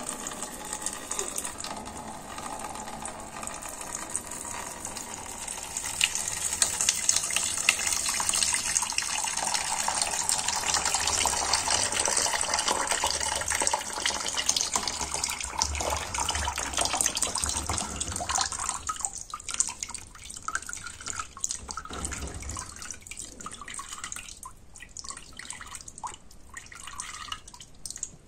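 Old antifreeze pouring from the motorcycle's water-pump drain hole into a container as the coolant is drained for replacement. A steady stream that thins to a trickle and separate drips about two-thirds of the way through.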